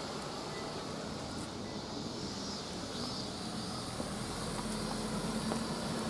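A minivan driving slowly across a parking lot, its engine a low steady hum that grows a little louder in the second half.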